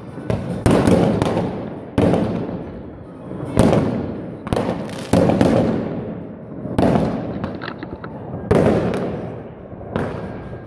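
Fireworks going off, about a dozen loud bangs at uneven intervals of roughly a second or so, each ringing out in a long echo off the surrounding high-rise blocks.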